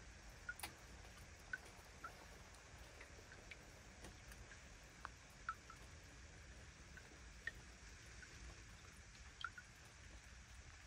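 Near silence: faint water lapping among shoreline rocks, heard as scattered soft drips and ticks at an uneven pace.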